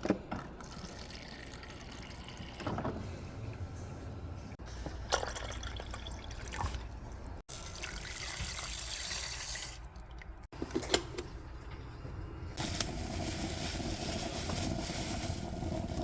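Water running from a tap into a rice cooker's inner pot, in several short clips, with a few knocks of the pot being handled.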